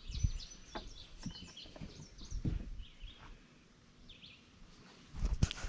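Small birds chirping in short, high calls, with a few light knocks and rustles; a loud rustling starts about five seconds in.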